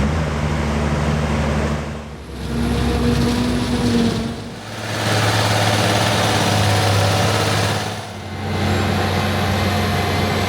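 Heavy diesel farm machinery running in the field, heard as a string of short clips: at each brief dip in level, about two, four and a half and eight seconds in, a different steady engine drone takes over.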